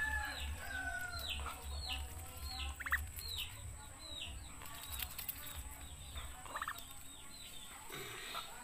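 A bird giving a run of short, high calls, each falling in pitch, about two a second, that stops about five seconds in. A few short clicks come in between.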